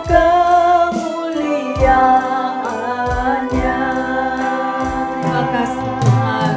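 Live worship band playing a slow praise song: a woman sings long held notes over the steady beat of an electronic drum kit and a bass guitar.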